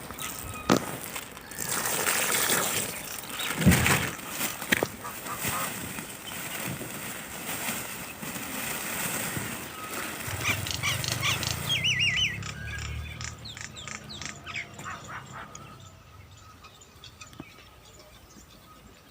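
Rustling with sharp knocks and clicks, then small birds chirping in quick wavy twitters from a little past halfway, fading toward the end.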